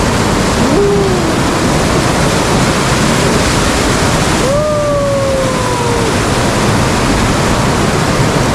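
Water rushing loudly and steadily down the spillway of an old irrigation canal. A short call rises and falls about a second in, and a longer held call falls slowly from about halfway.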